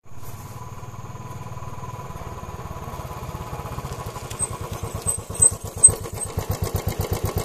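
Motorcycle engine approaching and passing close by, its exhaust pulses growing louder as it nears, with two sharp loud peaks about five and a half and six seconds in.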